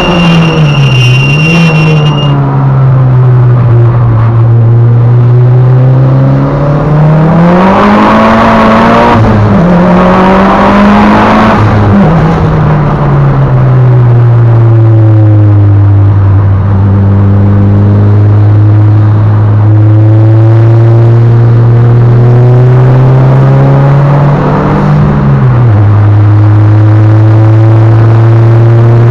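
Mitsubishi Lancer Evolution VIII's turbocharged 2.0-litre four-cylinder engine heard from inside the cabin on track. Its pitch rises and falls through gear changes and braking, with a long steady, slowly rising pull in the middle before it drops back near the end.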